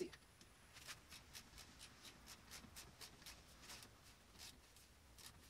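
Faint, rapid clicking of a torque wrench's ratchet, several light clicks a second, as a wheel stud is torqued to 25 foot-pounds.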